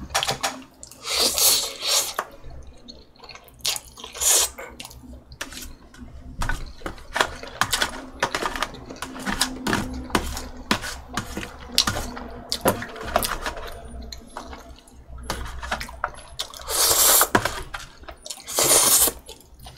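Close-miked eating of cheese oven spaghetti: wet chewing and noodle slurps, with several longer hissy slurps, two of them near the end. A metal fork clicks and scrapes against an aluminium foil tray.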